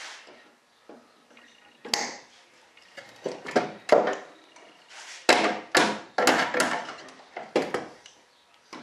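Sharp knocks and clacks, about a dozen over several seconds, from a hand tool and the metal parts of a model jet's main landing gear being handled and pulled apart by hand.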